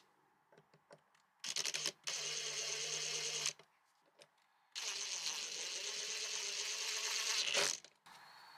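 Two bursts of compressed air, about two and three seconds long, blown into the cleaned grinder housing to dry it out; a few light handling ticks come before the first.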